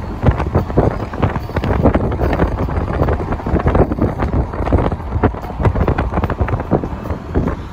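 Wind buffeting the phone's microphone from a moving car, a steady rumble broken by many irregular thumps.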